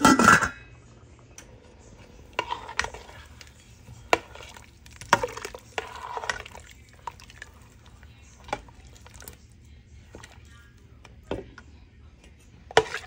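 A metal spoon stirring and scraping in a pot of boiling soup, with scattered clinks and knocks against the pot, after a loud clatter at the start.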